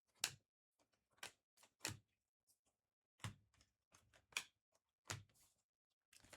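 Trading cards being handled and set down on a table: about six sharp, short clicks and taps at irregular intervals.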